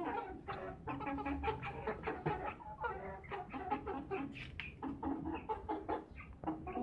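Aseel chickens clucking in a wire cage: a steady run of short clucks, one after another.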